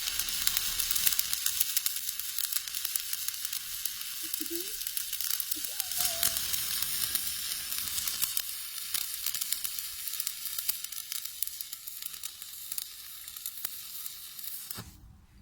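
Stick-welding arc burning as the electrode is dragged along the joint: a steady, dense crackling sizzle that cuts off suddenly near the end when the arc is broken.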